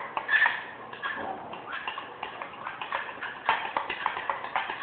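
Slime mixture of glue and detergent being stirred in a bowl, with rapid, irregular clicks and taps of the utensil against the bowl.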